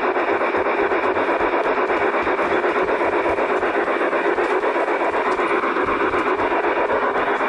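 G-scale model train running along brass track, heard up close: a steady whirring rumble of gear motor and wheels with a fast, even flutter.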